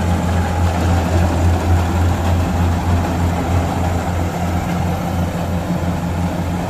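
Kubota DC-60 rice combine harvester's diesel engine running steadily at a constant, deep hum with no change in speed.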